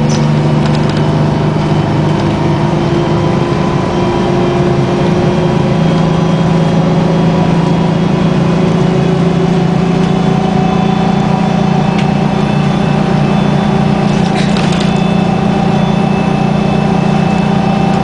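Detroit Diesel 6V92TA two-stroke V6 diesel of a 1994 New Flyer D40 transit bus, running under way and heard from inside the cabin: a loud, steady drone whose pitch climbs slightly over the first several seconds.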